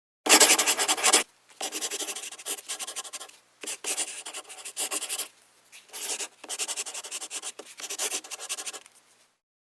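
A run of rough scratching or rubbing strokes in bursts with short pauses between them, the loudest in the first second, stopping shortly before the end.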